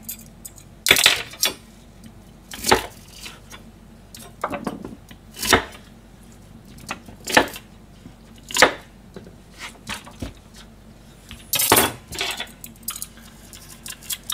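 Metal vegetable peeler scraping the skin off a lotus root, in about a dozen short, sharp strokes at irregular intervals of a second or two.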